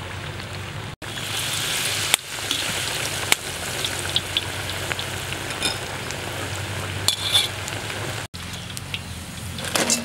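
Battered squid pieces deep-frying in a wok of hot oil: a steady sizzle with scattered crackles and pops. It starts abruptly about a second in and breaks off after about eight seconds.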